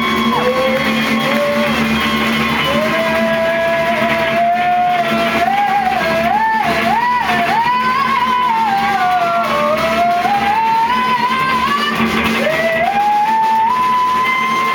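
Live band performance: a voice sliding and wavering between long held notes over guitar accompaniment, the melody climbing and holding high near the end.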